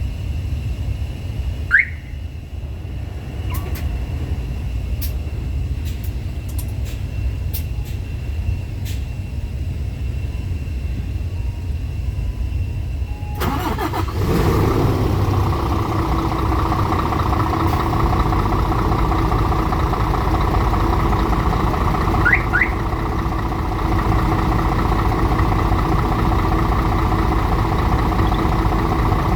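Scania S500 truck's diesel engine started remotely by smartphone through its alarm system: it fires up suddenly about 13 seconds in and settles into a steady idle. A short rising electronic chirp sounds about two seconds in, two quick chirps come about 22 seconds in, and a few faint clicks fall between 3 and 9 seconds.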